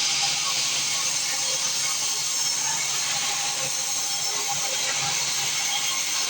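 Sawmill band saw running steadily: a constant high hiss with a faint steady whine underneath.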